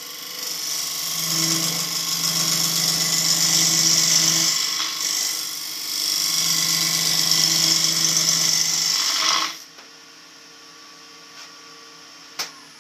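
A cutting tool biting into a spinning maple crotch blank on a wood lathe: a loud scraping hiss of the cut in two long passes with a brief lull between them. The cut stops abruptly about three quarters through, leaving the lathe's much quieter running hum and a single click near the end.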